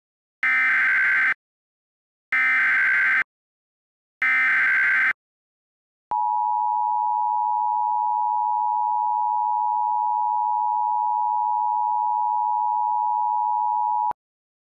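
Emergency Alert System SAME header: three bursts of digital data tones, each about a second long and a second apart, marking the start of an alert. Then the steady two-tone EAS attention signal, held for about eight seconds and cutting off abruptly.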